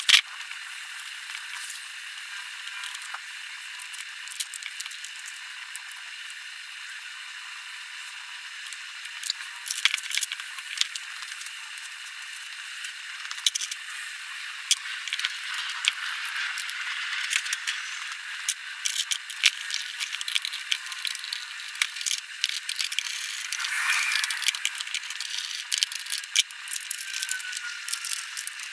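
Plastic under-seat storage box and its fittings being handled and set into a scooter's frame: irregular clicks, knocks and rattles of plastic and small hardware, over a steady background hiss.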